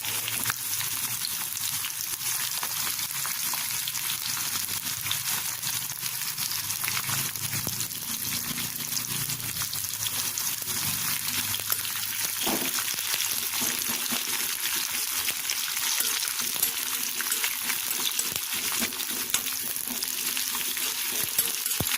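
Chopped onion frying in hot oil for a tadka, a steady sizzling hiss.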